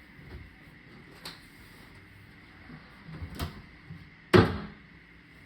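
A window being opened by hand: a light click, then a rattle, then a sharp knock about four seconds in, the loudest sound, with a short ring after it.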